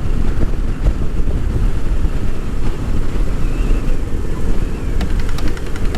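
Wind buffeting the microphone of a riding motorcycle at road speed: a dense, steady low rumble.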